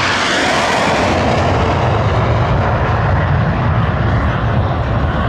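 A MiG-17F jet fighter's afterburning turbojet roars past low in afterburner. The loud hiss is strongest at the start, then eases into a deep, steady rumble as the jet passes.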